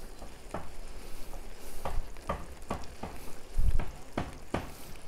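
Metal spoon poking small hollows into steaming plov rice in a kazan, a steady sizzle from the pot under a series of soft knocks and scrapes of the spoon.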